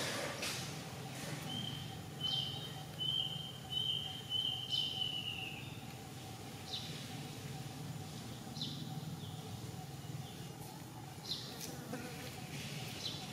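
An insect buzzing at a steady high pitch in a string of short pulses for about four seconds, dropping slightly as it stops. Short high chirps are scattered through it, over a steady low hum.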